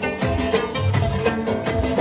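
Loud southern Iranian dance music with a steady, even drum beat and deep bass notes under a melody.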